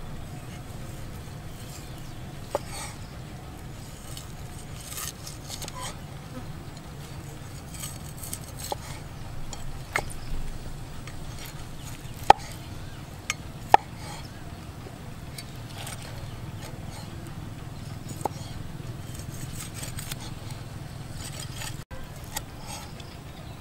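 Cleaver cutting boiled cow foot on a wooden chopping block: a few irregular sharp knocks of the blade hitting the board, the loudest two a little past the middle, over a steady low hum.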